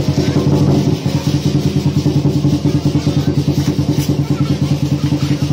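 Barongsai lion-dance percussion: drum and cymbals beating a fast, steady rhythm of about five strokes a second.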